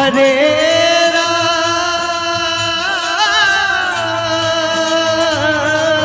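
A man's voice singing devotional Hindu kirtan, holding one long drawn-out note that wavers about halfway through and again near the end, over steady harmonium accompaniment.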